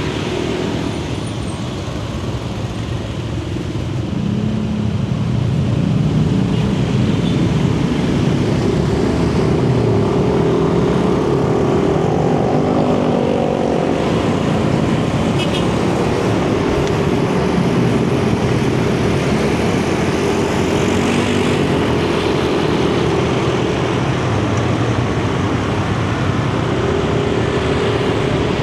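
Yamaha NMAX 155 scooter's single-cylinder engine picking up speed and then cruising steadily, with wind rush and road traffic noise around it. The engine note rises about four seconds in and then holds.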